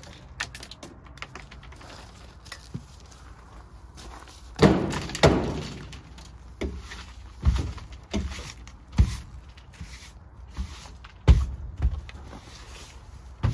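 Repeated knocks and thunks, about a dozen, as a long-handled tool is rammed down into the inside of a 1957 Plymouth station wagon's steel tailgate to knock loose its stuck, locked latch mechanism. The two loudest blows come close together about five seconds in and ring on briefly.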